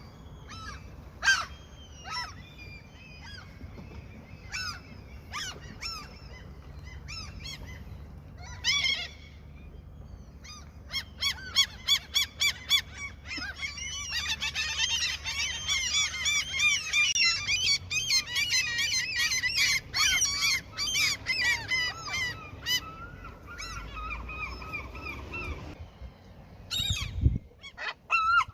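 Seagulls calling: scattered single calls at first, then many birds calling at once in a dense run of rapid, overlapping cries through the middle, thinning out near the end.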